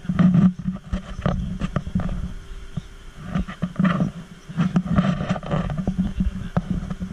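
Deep roars from the ride's dinosaur sound effects, coming in about four bursts over a steady hum.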